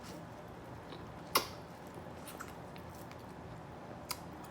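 A person chewing seafood, with a few sharp wet mouth clicks, the loudest about a second and a half in and another near the end.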